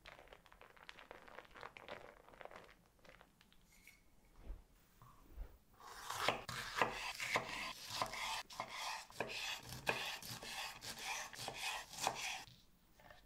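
Knife chopping on a cutting board: a few light taps at first, then a fast, steady run of chopping strokes from about six seconds in, stopping shortly before the end.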